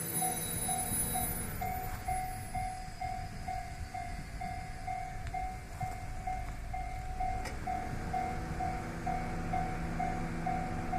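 Japanese level-crossing warning bell ringing in an even, repeating ding, about two strikes a second, over the low running of a diesel railcar's engine, which comes up more strongly from about eight seconds in.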